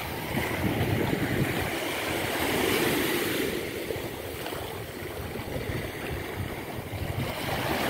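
Small bay waves lapping and washing up onto a sandy shore, swelling and easing, with some wind on the microphone.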